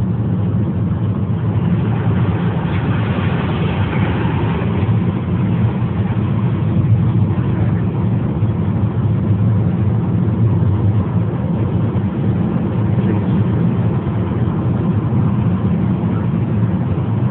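Road and engine noise inside a moving car's cabin: a steady low rumble with hiss, the hiss swelling a little a few seconds in.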